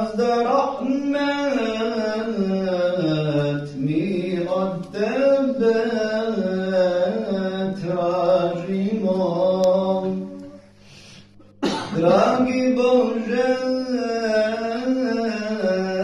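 Unaccompanied solo male voice chanting a melismatic Islamic religious recitation, with long held notes that bend up and down. About ten seconds in it breaks off briefly for breath, then starts again.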